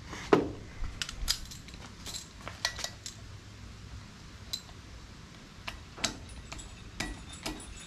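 Irregular metallic clicks and clinks of a hand ratchet and socket worked on the flywheel bolts of a Subaru EJ257 engine hanging from a hoist, a few of them ringing briefly.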